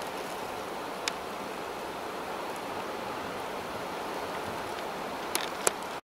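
Steady hiss of wind-driven snow and sleet falling over brush, with a few faint ticks, one about a second in and two near the end.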